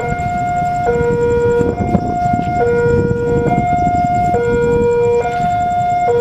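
Electronic two-tone warning alarm of a railway level crossing, alternating a high and a low note, each held just under a second, over a rumble of background noise.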